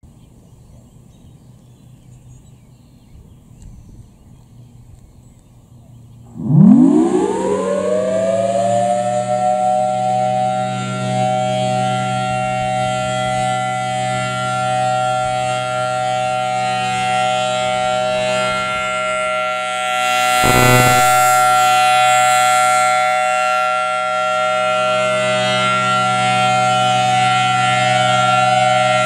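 Federal Signal Thunderbolt 1000AT outdoor warning siren starting up. It is faint until about six seconds in, then winds up quickly in a rising wail and settles into a loud, steady multi-tone chord with a hiss over it. The sound swells a little about twenty seconds in.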